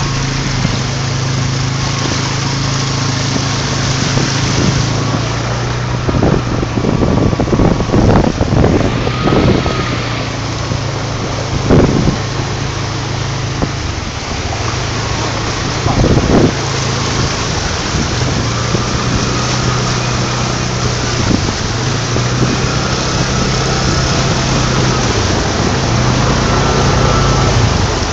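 A vehicle engine running steadily while driving through flood water, with wind on the microphone and the rush and splash of water. The noise surges louder several times in the middle.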